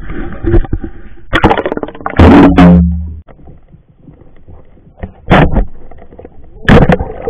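Muffled thumps and water noise picked up by an action camera lowered through a hole in the ice and held under water, with a few loud irregular bumps, the loudest about two and a half seconds in.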